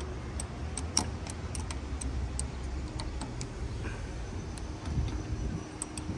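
Ratchet wrench clicking in short strokes as the negative battery terminal clamp is tightened: a string of sharp, irregular clicks, a few a second, with pauses.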